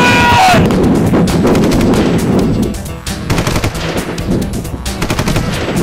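Rapid automatic gunfire, many shots a second, easing briefly about three seconds in and then resuming.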